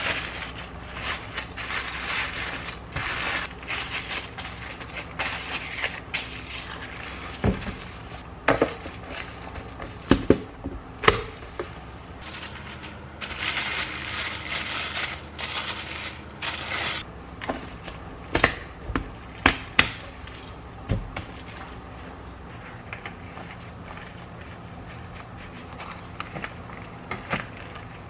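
Kitchen work sounds: a string of sharp knocks and clatters of utensils, dishes and containers being handled and set down, with a few seconds of noisy rustling or hissing in the middle, over a steady low hum.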